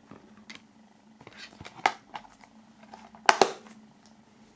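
Plastic DVD case being handled and closed: light rustles and small clicks, with a sharper click just before two seconds in and the loudest, a quick double click, a little over three seconds in.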